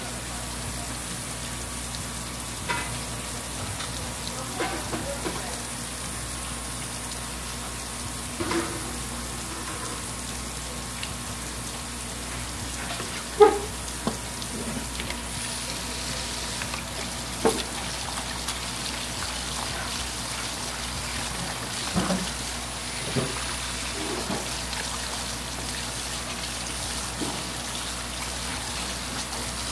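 Steady hiss of running water, with scattered short knocks and clatter, the loudest about halfway through.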